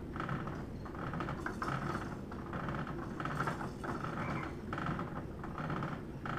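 Battery-powered baby swing's motor running, giving a steady run of short repeated mechanical whirs and clicks as it drives the seat back and forth.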